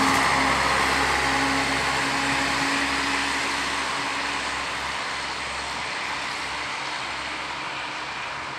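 Czech Railways class 843 diesel multiple unit passing and then moving away, its diesel engine and running gear making a steady whine that fades gradually.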